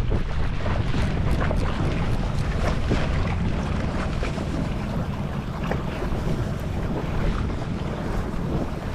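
Jet ski running over open sea, with wind buffeting the microphone and water slapping and splashing against the hull.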